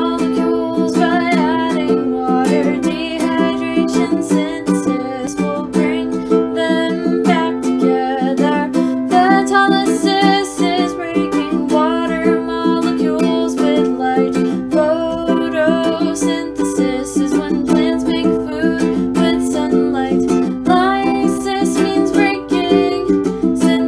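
Ukulele strummed in a steady rhythm through the chords C, G, A minor and F, with a voice singing a melody over it.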